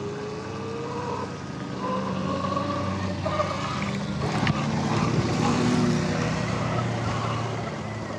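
Sur-Ron X electric dirt bike under way: a thin motor whine that rises in pitch as the bike picks up speed, over wind and tyre noise. The rush grows louder, with a couple of short knocks, as the bike rides over rough grass about four to six seconds in.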